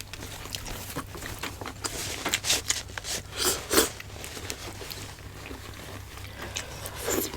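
Close-miked eating sounds: scattered chewing and mouth smacks with a few light clicks, over a low steady hum.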